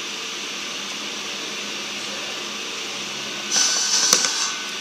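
Steady background whir of a workshop room, with a brief louder clatter and one sharp click about three and a half to four seconds in.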